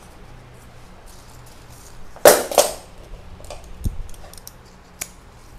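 Handling noise from arranging gold-sprayed leaves and stems in the orchid pot: two sharp crackling rustles in quick succession about two seconds in, then softer clicks and rustling, a dull low knock, and one last sharp click near the end.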